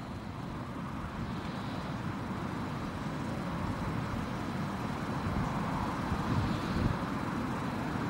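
Strong wind blowing over the microphone: a steady low rumble with a hiss above it, growing a little louder toward the end.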